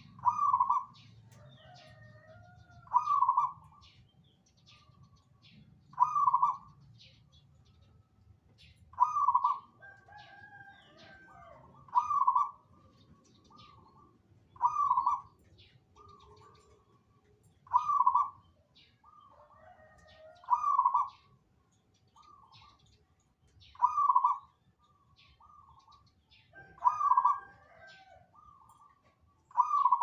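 Zebra dove (perkutut) cooing, a loud phrase repeated about every three seconds, with smaller birds chirping high and quick in between.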